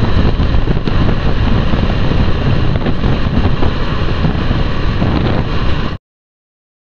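Heavy wind buffeting the microphone of a moving scooter, a loud rushing noise that cuts off suddenly near the end.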